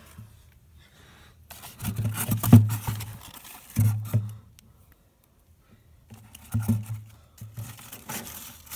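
Handling noise as a vine is fitted into a glass terrarium: bursts of rustling, scraping and light knocks, loudest about two and a half seconds in, with a short lull near the middle.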